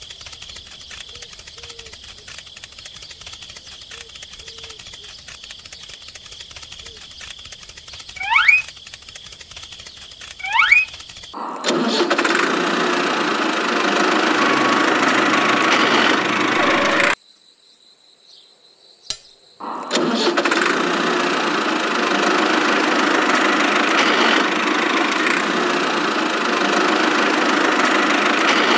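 A miniature DIY toy tractor's engine sound starts about a third of the way in and runs steadily. It cuts out for about three seconds, with a single click, then runs again to the end. Before the engine starts, a quiet background carries two short rising whistle-like chirps.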